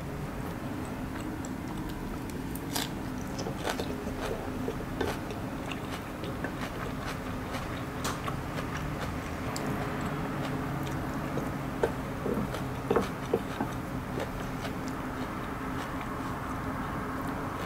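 Close-miked chewing and mouth sounds of a person eating, with small scattered clicks of wooden utensils against a ceramic bowl, a few louder ones about two-thirds of the way through, over a steady low background hum.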